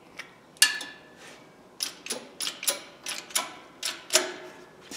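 A run of sharp clicks and knocks, about three a second, as wooden blocks and pipe-wrench parts are shifted by hand on the steel bed of a shop press.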